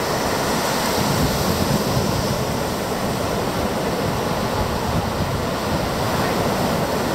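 Steady rush of ocean surf breaking on a beach, with some wind.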